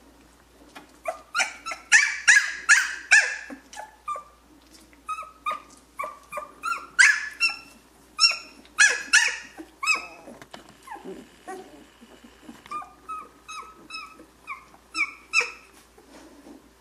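Two-week-old Chinook puppies squealing and whining, many short high-pitched yelps in rapid clusters. They are loudest around two to three seconds in and again around seven to nine seconds in, with a few falling whines after that.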